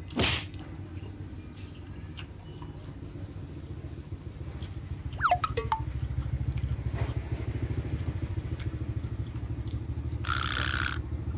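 A small engine running steadily with a low pulsing drone, growing louder about halfway through. A click at the start and a short hiss near the end.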